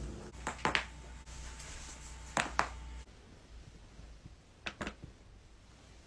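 Joints cracking during chiropractic back adjustments: three quick double pops, about a second in, about two and a half seconds in, and near five seconds in.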